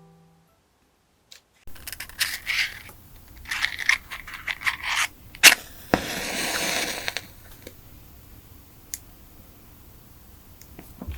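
Rustling and scraping of small objects being handled. About six seconds in, a match is struck and flares with a hiss for about a second.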